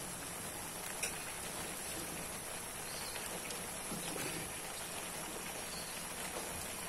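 Meat and vegetables cooking in liquid in an aluminium wok over a gas burner: a steady sizzling, bubbling hiss, with a faint knock about a second in.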